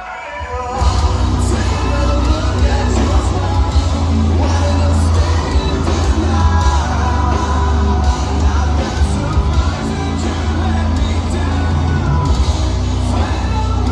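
Live heavy metal band playing: distorted electric guitars, bass and drums under a lead singer's sung and shouted vocals, heard from within the crowd in a large hall. The band drops out for a moment at the very start and the full sound comes back in under a second in.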